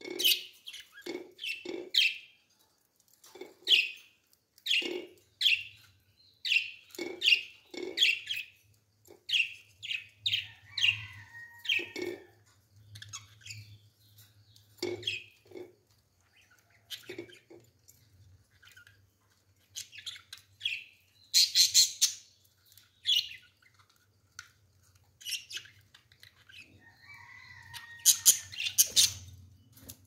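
Budgerigars chirping and chattering in many short calls, with two louder bursts of calls, one about two-thirds of the way through and one near the end.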